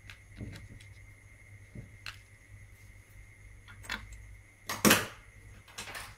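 Light clicks and taps of a small electronic part being handled and set down on a plastic cutting mat, with a louder sharp knock about five seconds in, over a faint steady hum.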